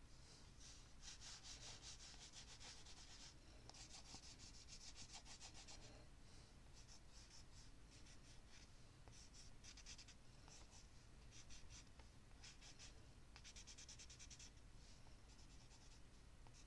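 Faint scratching of a wooden stick loaded with black ink being dragged across collage paper, in stretches of strokes lasting a second or two with short pauses between, the longest near the start.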